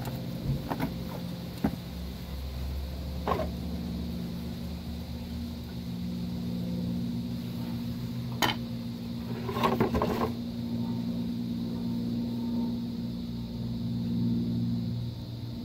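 Scattered metallic clicks and knocks as rear drum-brake shoes and their hardware are handled and fitted against the backing plate, with a quick cluster of them about ten seconds in. A steady low hum runs underneath.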